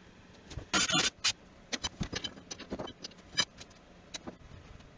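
A quick clatter of sharp clicks about a second in, then scattered light clicks and taps: tools and small hardware being handled.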